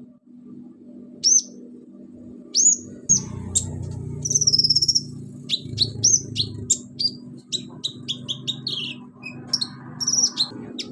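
Caged konin (kolibri ninja sunbird) singing a busy song of sharp, high chirps and quick upward flicks, strung together fastest in the second half. This is a konin whose song is full of mimicked sounds.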